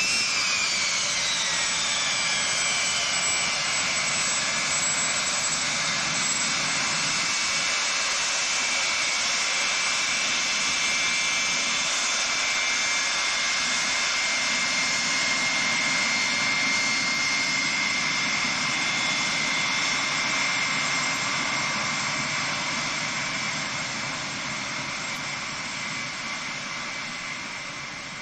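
Pratt & Whitney JT3D turbofans of a Boeing 707 freighter running at taxi power as it passes: a steady high whine over a broad jet roar. The whine falls in pitch just after the start as the aircraft goes by, and the sound fades near the end as it taxis away.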